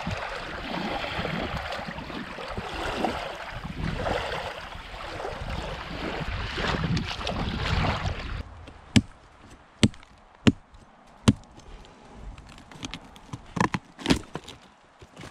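Water sloshing and splashing as a trout is washed in the lake shallows; this stops abruptly about eight seconds in. Then come about six sharp cracks with light crackling between them, as pieces of rotten wood are snapped and torn off a fallen log.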